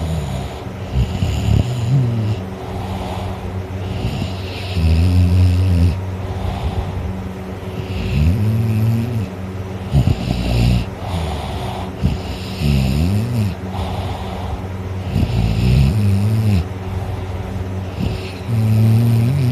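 A person snoring in sleep: a loud snore on each breath, roughly every two to three seconds, many of them with a pitched tone that wavers up and down.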